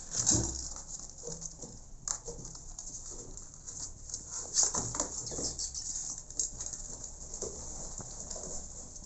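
Cats and kittens eating dry kibble off plates: irregular crunches and small clicks, with a few louder thumps and rustles of the phone being handled close by.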